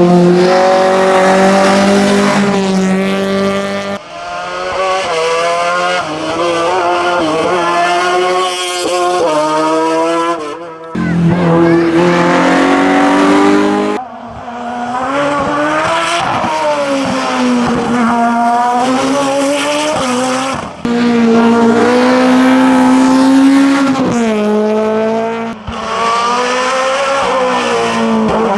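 Hillclimb race car engines at hard throttle, revving up and dropping back through gear changes as the cars climb the course. The sound changes abruptly several times, as one car gives way to the next.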